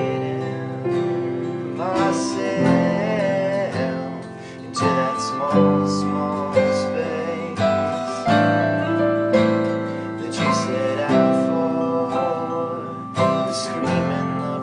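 Acoustic guitars strumming chords together with a keyboard, in an instrumental passage of an acoustic rock song.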